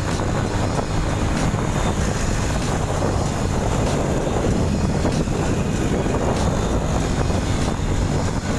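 Rusi Korak 110cc motorcycle running steadily at road speed, with wind rushing over the microphone.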